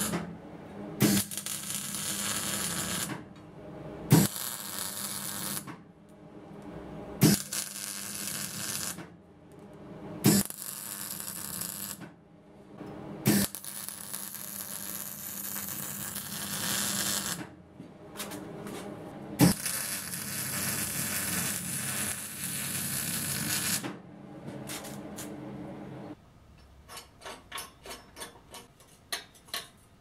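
MIG welder laying a series of short welds: each is a crackling hiss of one to four seconds that starts with a sharp pop as the arc strikes, with brief pauses between them. Near the end there is a run of quick light clicks.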